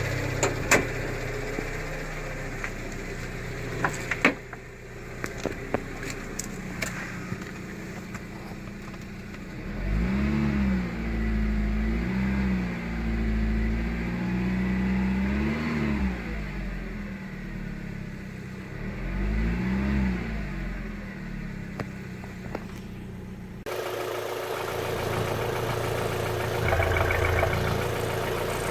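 Lancia Delta III's 1.8 TBi turbocharged four-cylinder petrol engine running, revved up and let fall back several times in the middle, with a few sharp clicks near the start. A sudden change about three quarters of the way through leads to a steadier running sound with a constant whine.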